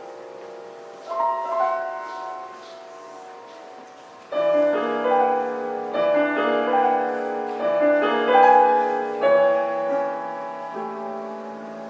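Solo piano played by a child: soft held notes with a short figure about a second in, then from about four seconds in louder repeated notes and chords in the middle register that fade toward the end.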